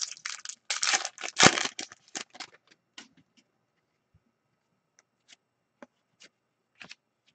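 Hockey card pack wrapper being torn open and crinkled for the first two seconds or so, then scattered soft clicks and rustles as the cards are taken out and handled.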